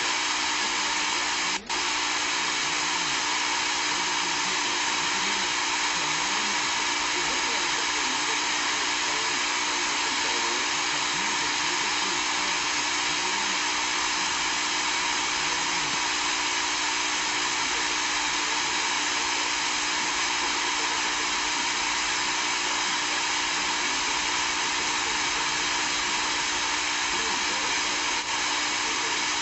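Steady whirring hiss with a constant hum, like a fan or electrical noise, with faint low voices murmuring beneath it. The sound cuts out briefly about a second and a half in; there is no blast or bang.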